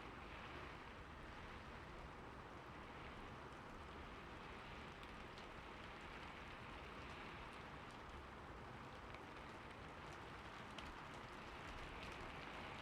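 Steady, soft rain falling, an even hiss with faint scattered drop ticks.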